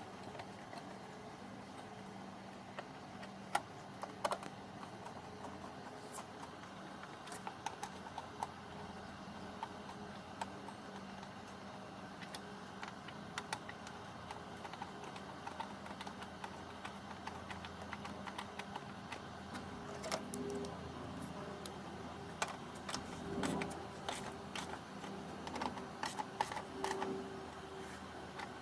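Scattered light clicks and taps of hands working on the wiper motor and linkage parts, growing busier in the last third, over a low steady hum.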